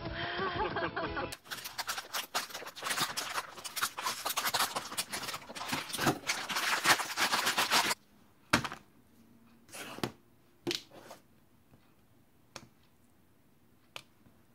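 Plastic instant-noodle packet crinkling and crackling as it is handled, dense and continuous for several seconds and stopping abruptly about eight seconds in. After that come a handful of separate clicks and taps.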